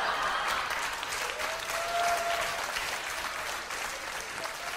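Large audience applauding: a dense patter of clapping that is at its fullest early on and eases slightly toward the end, with a short held note rising out of it near the middle.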